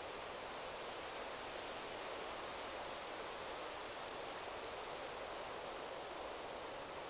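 Wind rustling steadily through forest trees, an even, unbroken hiss of moving leaves.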